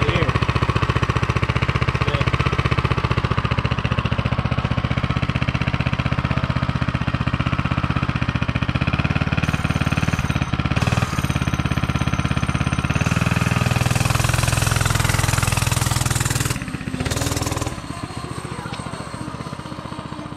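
Coleman CC100X mini bike's 99cc single-cylinder engine running close by with a steady, rapid firing beat. It gets noticeably quieter about three-quarters of the way through.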